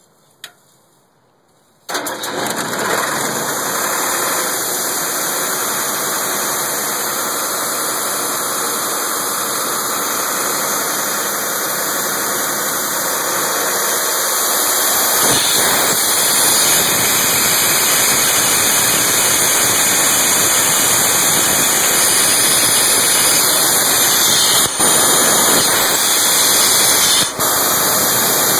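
A single click, then about two seconds in the diesel engine of an Ingersoll Rand 175 cfm portable air compressor starts abruptly and runs steadily. About halfway through the sound gets a little louder and deeper.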